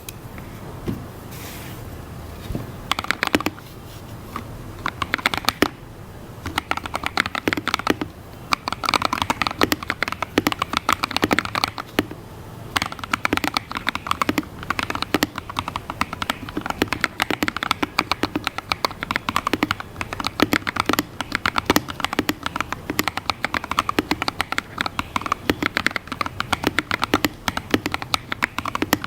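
Typing on a budget mechanical keyboard, a Redragon Fizz K617, fitted with lubed Akko CS Red linear switches and XDA-profile PBT keycaps, with tape and foam mods in the case. A few scattered keystrokes at first, then fast, continuous typing with short pauses.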